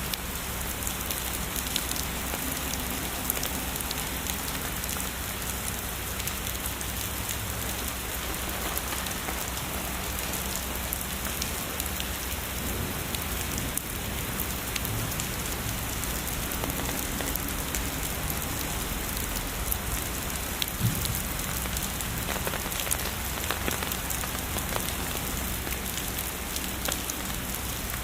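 Heavy rain falling steadily on a surface, with many individual drops ticking sharply through the even hiss.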